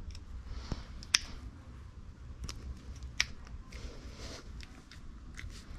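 Parts being handled by hand: a few small sharp clicks, the clearest about a second in and another about three seconds in, with soft rustling between.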